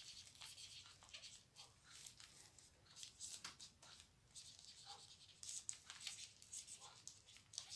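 Faint rustling and crinkling of packaging being handled and opened, in short scattered crackles.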